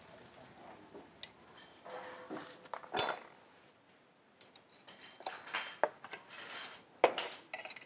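Metal tools and small metal parts clinking and clicking as they are handled, in scattered separate clicks, the loudest and sharpest about three seconds in.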